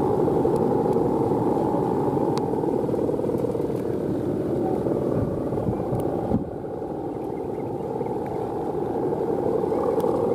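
Bow hummers (guangan) on a Balinese bebean plastic kite droning steadily in strong wind, with wind noise. The drone eases slightly about six seconds in.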